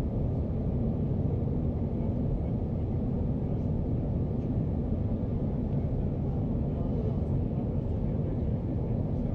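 Steady low rumble of a Boeing 737 airliner's jet engines and airflow, heard from inside the passenger cabin.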